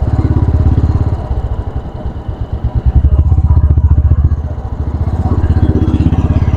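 Royal Enfield Classic 350's single-cylinder engine and exhaust on the move, its low, even beat easing off and quietening about a second in, then rising loud again about three seconds in.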